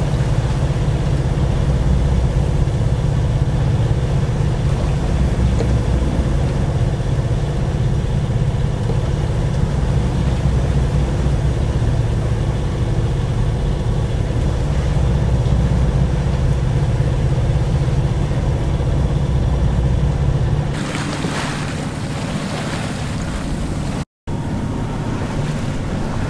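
A sailing yacht's engine running steadily under way, a low drone with a steady hum, as the boat motors in light wind. About 20 seconds in it gives way to wind and water rushing past, which cuts out for a moment near the end.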